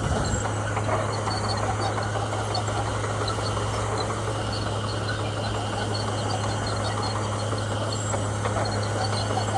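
Komatsu bulldozer's diesel engine running steadily under work, a constant low drone with no change in pitch, with a brief low knock near the start.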